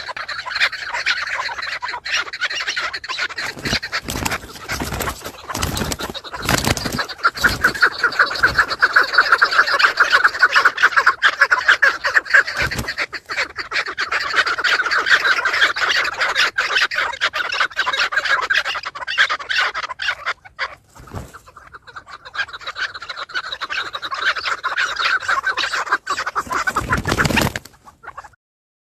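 Birds fighting, squawking in a dense, rapid stream of calls. A few loud thumps come between four and seven seconds in and again near the end, and there is a brief lull about two-thirds of the way through.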